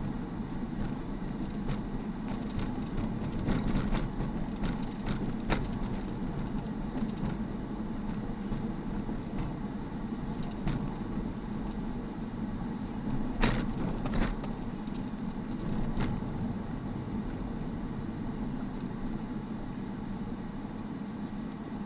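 Car driving on a city street heard from inside the cabin: a steady hum of engine and tyres, with scattered light clicks and knocks, two sharper ones close together a little past the middle.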